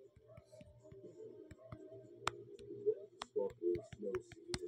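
Muffled background music, with a few sharp clicks scattered through it.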